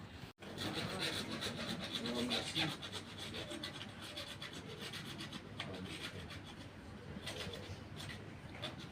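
Continuous scraping and rubbing, dotted with many small clicks, as hands work at a washing machine's pipe fitting.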